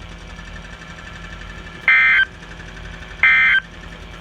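NOAA Weather Radio SAME digital data bursts over the receiver: three short, loud, buzzy screeches about a second apart, starting about two seconds in, over steady radio hiss and hum. Short bursts like these right after the test script are the end-of-message code that closes the weekly test alert.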